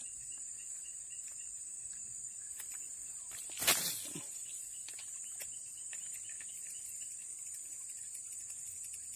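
Steady high-pitched drone of insects, with one short, loud splash on the water surface a little past three and a half seconds in.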